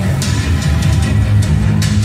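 Loud music with a heavy bass line and drum hits.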